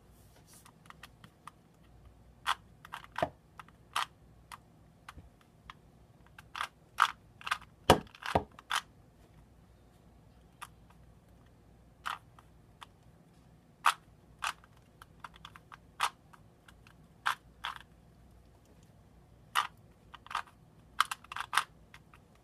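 Plastic Rubik's Cube layers being turned by hand: irregular sharp clicks and clacks as the faces snap round, with quicker runs of turns about a third of the way in and again near the end.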